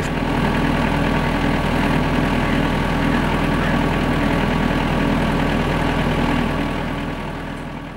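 A steady low mechanical hum, engine-like, fading away over the last two seconds.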